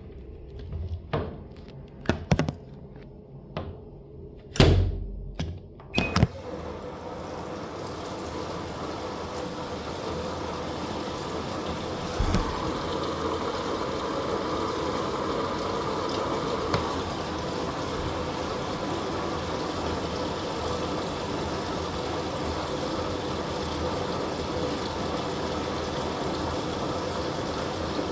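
Top-loader washing machine: a few knocks and clicks of handling, then from about six seconds in the machine runs with a steady whooshing noise and a faint hum.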